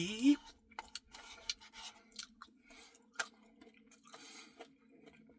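Close-up mouth sounds of eating a Reese's Pieces cookie dough Blizzard: soft chewing with scattered short, wet clicks.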